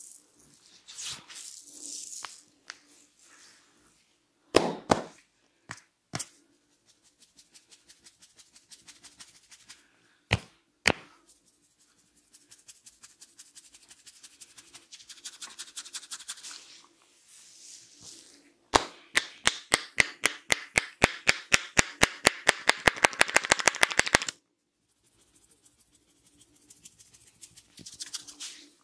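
Hands working through hair in an Indian head massage, with soft rustling and a few single sharp taps. Then comes about five seconds of rapid rhythmic hand tapping on the head, quickening to around ten strikes a second before stopping abruptly.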